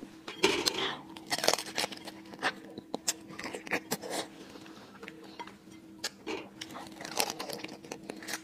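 Close-miked crab shell and legs cracking and snapping as they are pulled apart by hand, with wet biting and sucking as crab meat is eaten from the shell, in irregular bursts over a faint steady hum.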